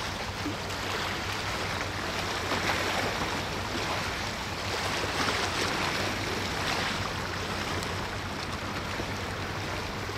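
Sea water washing and rushing, swelling and easing every couple of seconds, over a steady low hum.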